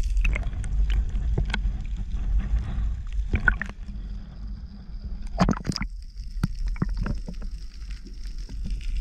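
Seawater sloshing and gurgling around a camera held at and below the surface while snorkelling, with a steady low rumble and scattered bubble pops and splashes, thickest about three and a half and five and a half seconds in.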